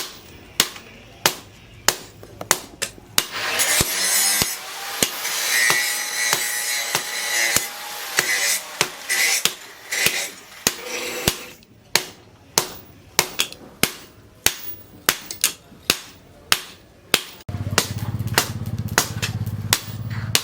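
Hand hammer striking hot steel from a tractor disc on an anvil in a steady rhythm, about three blows every two seconds. A hissing noise runs with the blows for several seconds in the first half, and a low steady hum starts near the end.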